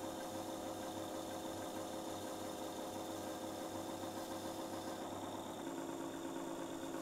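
Small electric motor of a watchmaker's lathe running steadily and driving the spindle by belt, a steady hum. The tone shifts slightly a little over five seconds in.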